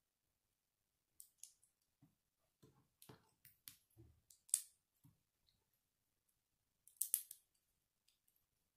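Small plastic Lego pieces clicking and snapping together in the hands, in scattered clusters of faint clicks, with the sharpest snap about four and a half seconds in and another quick run of clicks about seven seconds in.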